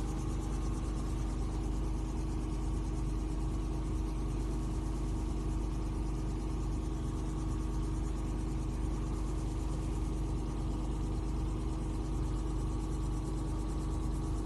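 Steady electric hum with a strong low tone, from the vacuum pump of an RF-and-vacuum beauty machine left running.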